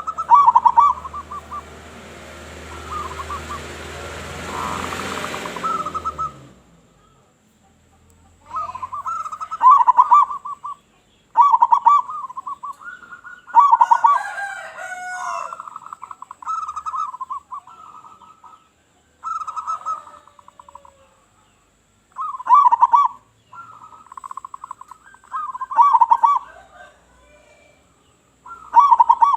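Zebra dove (local perkutut) cooing, a string of short cooing phrases about a second long, repeated with short gaps. A broad rushing noise runs under the calls for the first several seconds, then stops.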